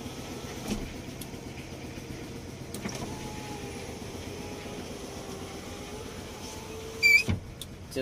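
Car power window motor running steadily as it lowers the door glass, driven through a newly wired five-terminal up/down switch. A short squeal and a thump come about seven seconds in.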